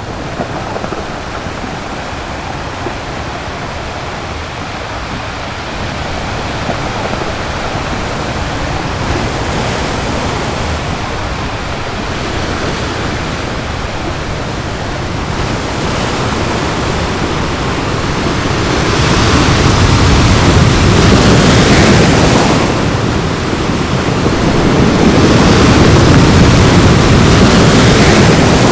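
Ocean waves breaking and washing up on a beach, a steady rush that builds gradually and swells louder twice in the latter part.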